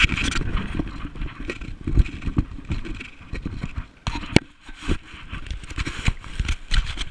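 Wind buffeting and rubbing on the microphone of a body-worn GoPro in an open skeleton housing as the wearer runs and jumps, with irregular thumps from footfalls and landings.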